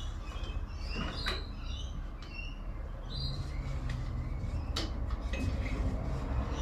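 Small birds chirping in short, scattered calls, with two sharp clicks and a steady low rumble underneath.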